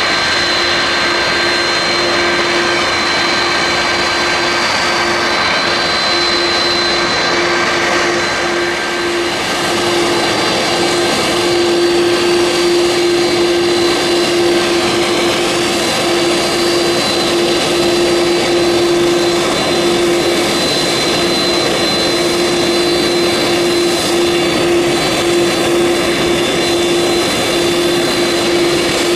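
Airbus A330-200 MRTT tanker's two turbofan engines running at taxi power, a steady whining drone with a strong low hum and higher whistles. It grows a little louder about a third of the way in.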